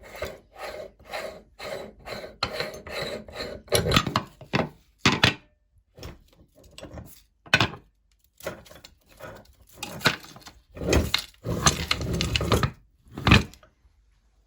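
Ice being crushed in a meat grinder: repeated crunching and grinding in short bursts, a few a second, with louder and longer grinds from about four seconds in and again near the end.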